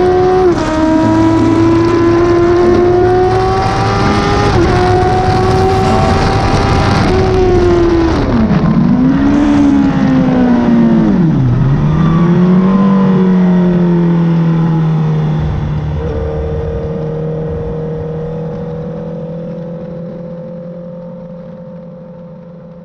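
Honda CBR1000RR Fireblade's inline-four engine through an SC Project exhaust, heard onboard at speed: it revs up through three quick upshifts, then drops off sharply with downshifts and revs dipping and rising, and settles to a steady lower-rev run as the sound fades out.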